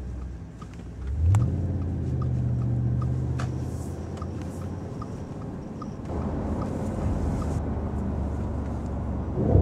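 Audi RS5's 4.2-litre V8 through its sport exhaust, revving up about a second in and then pulling steadily, with another quick rise in revs near the end. A light regular ticking comes about three times a second over the first part.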